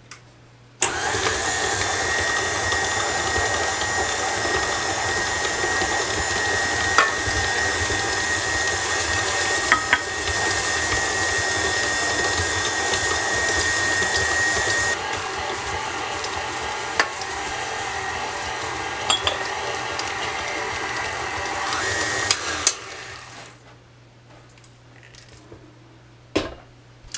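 Electric stand mixer running with its flat beater, creaming lard: a steady motor whine that starts about a second in, drops a little in level about halfway, and stops a few seconds before the end. A few light clicks sound along the way.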